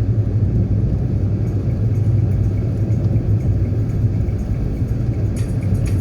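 Steady low rumble with a rushing hiss over it and no clear pitch; faint rapid ticking comes in near the end.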